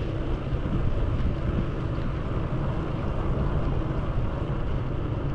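Steady wind rushing over the microphone of a bicycle-mounted camera while riding, mixed with the hiss of bicycle tyres rolling on wet asphalt.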